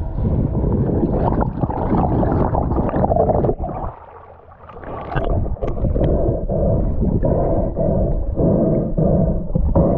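Muffled underwater rumble and wash of water moving around a submerged camera. It drops away briefly about four seconds in, when the camera breaks the surface, then returns as it goes back under.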